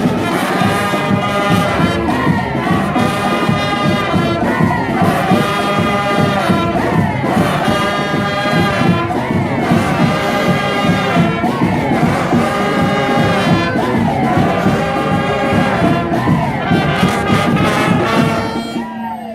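Street brass band playing, with horns such as trumpets, trombones and saxophones over a drum section, and a crowd audible underneath. The music drops away near the end.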